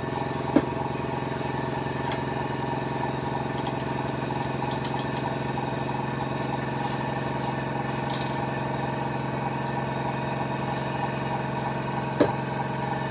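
Steady drone of a small workshop motor, with the hiss of an airbrush being flushed out into its cleaning pot. A sharp click comes about half a second in and a knock near the end.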